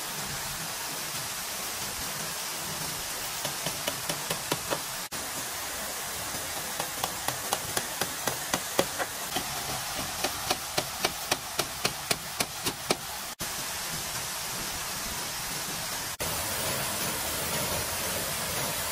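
Quick, evenly spaced knocks, about four a second, in two runs: a short one a few seconds in and a longer one of about six seconds in the middle. They sound over a steady rushing noise.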